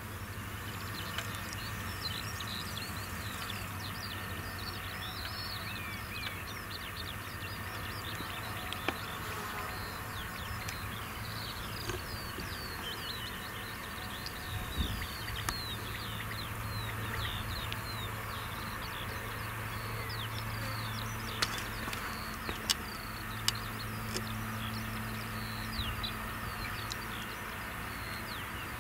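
Diesel engines of a distant truck and tractor hauling silage trailers, a low steady drone that grows a little stronger in the second half. Many small birds chirp over it, and there are a few sharp clicks.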